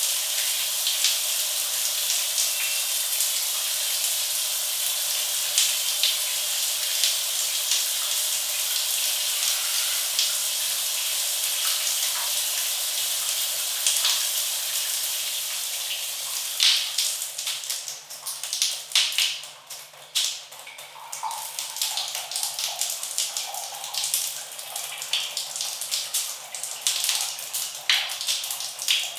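Shower running: a steady hiss of spray, which about halfway through breaks up into uneven splashing and dripping as the stream is interrupted or eased off.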